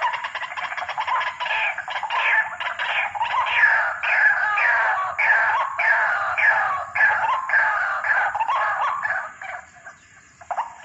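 White-breasted waterhen (ruak-ruak) calling: a fast run of repeated falling notes, about two a second, that fades away near the end.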